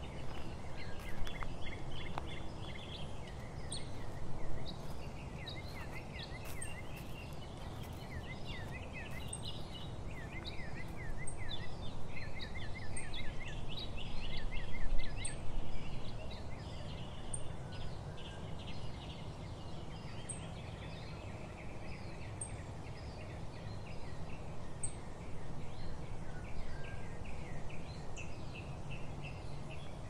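Small woodland songbirds calling and singing, with quick runs of repeated chirps and trills, over a low steady rumble.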